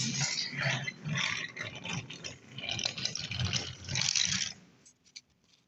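Wooden toy trains rattling and scraping along wooden track, an uneven clatter that dies away near the end, leaving a few faint clicks.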